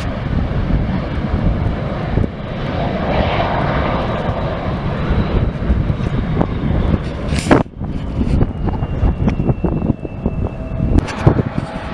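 Airliner's engines running with a loud low rumble. A steady high whine comes in during the second half, and a few sharp crackles come about halfway through and near the end.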